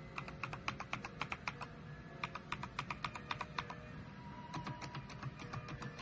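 Typing on an AKKO Mojike GK1 mechanical keyboard with AKKO v2 switches: quick runs of key clicks, with a short pause about two seconds in.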